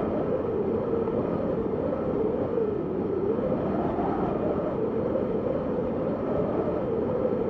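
Wind sound effect: a steady rushing gust with a howling tone that slowly rises and falls in pitch.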